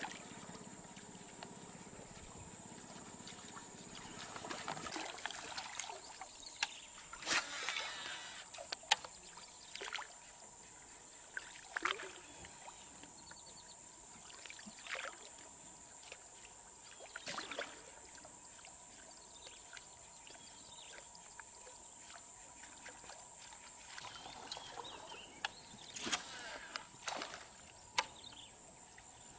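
Faint, scattered splashes and sloshing of river water as toman (giant snakehead) swirl after a topwater lure, over a steady high hiss.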